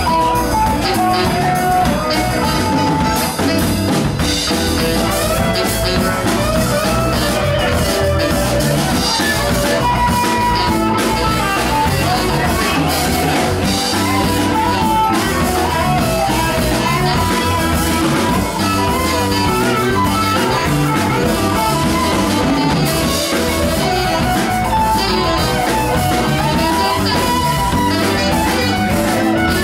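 Live band playing an instrumental Latin rock passage: a saxophone carries a melody of held and gliding notes over electric guitar, bass guitar, keyboard and drum kit.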